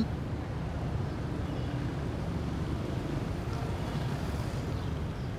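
Steady low background rumble of outdoor ambience, like distant traffic, with no distinct events.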